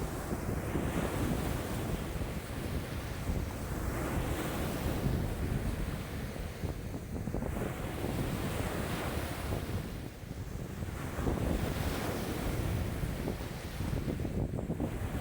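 Wind-driven waves on a lake washing in one after another, with strong wind buffeting the microphone as a steady low rumble. The hiss of the water swells and fades every few seconds as each wave breaks.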